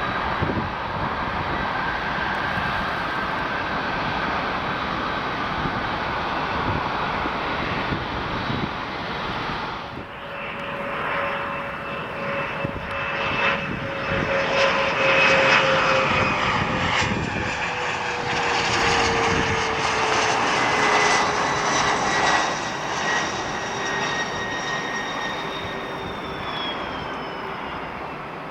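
A Boeing 777-300's jet engines with a steady rush. About a third of the way in it cuts to a Bombardier CRJ-200 regional jet's engines, which grow louder, with thin whining tones that slowly fall in pitch as it passes, then fade.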